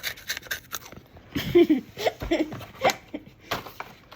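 Quick, irregular clicks, taps and crunchy crackles close to the microphone, made for ASMR, with a few short vocal sounds about halfway through.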